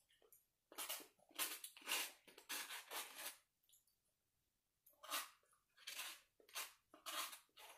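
Close-up eating sounds: a run of short, noisy bursts, a pause of about a second and a half, then another run.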